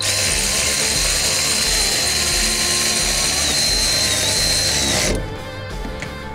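Cordless electric ratchet with a long extension spinning a nut on a brake master cylinder mount. It runs steadily with a high whine for about five seconds, wavers near the end, then stops.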